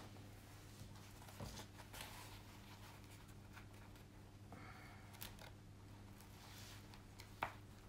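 Faint rustles and light ticks of a diamond painting canvas and its plastic protective sheet being handled, over a steady low hum; a slightly sharper tick comes near the end.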